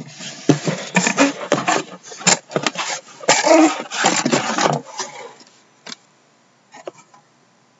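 Cardboard hobby boxes rubbing and knocking against each other and the cardboard shipping case as one is slid out: a busy run of scraping and bumping for about five seconds, then a few light clicks.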